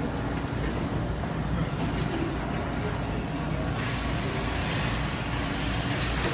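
Steady low rumble of arcade room noise with faint, indistinct voices. A hiss swells about four seconds in.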